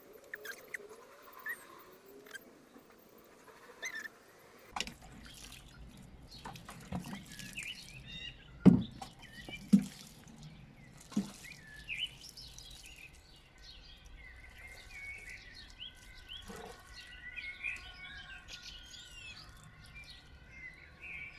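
Small birds chirping, with a few sharp knocks and thumps from planting work in the soil, the loudest about nine and ten seconds in.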